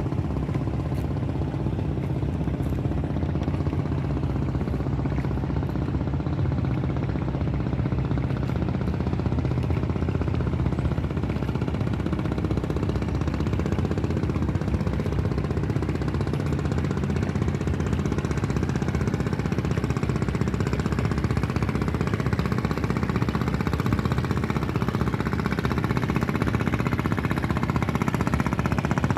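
Boat engine running steadily with a rapid knocking pulse, growing slightly louder near the end.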